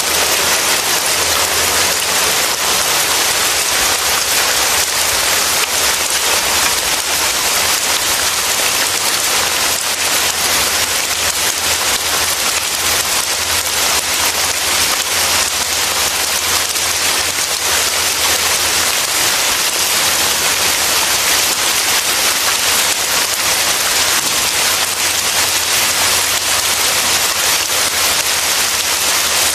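Steady heavy rain falling, a dense even hiss with no breaks or single drops standing out.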